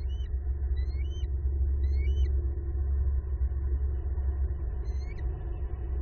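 A steady low rumble on an outdoor nest-cam microphone, with a bird's short rising chirps four times: three in the first two and a half seconds and one more about five seconds in.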